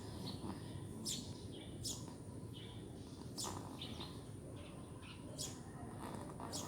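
Snoring breaths with short, high, squeaky whistles roughly every second or two, over a steady low rumble.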